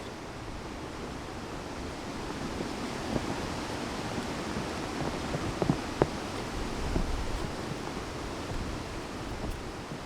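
Steady hiss of rain and wind, with a few sharp clicks and knocks about halfway through.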